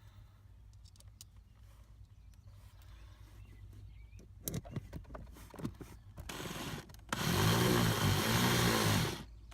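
Drill driving a Phillips screw through carpet to hold an aluminium dead pedal. A few handling clicks come first, then a brief spin. Near the end the drill runs for about two seconds, its motor speed rising and falling twice before it stops.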